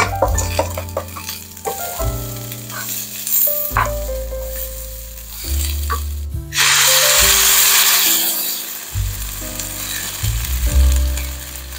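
Raw rice and bok choy being stirred with a wooden spatula in a hot frying pan, sizzling with scattered clicks and scrapes, over background music. About two-thirds of the way in, a loud steady sizzling hiss lasts a couple of seconds.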